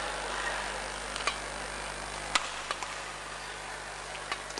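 Badminton rally: sharp racket strikes on the shuttlecock, about one a second, the loudest about two and a half seconds in, over a steady sports-hall background hum.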